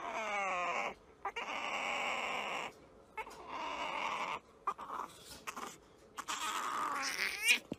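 A puppy whining and squealing in several separate bursts. The first call slides down in pitch.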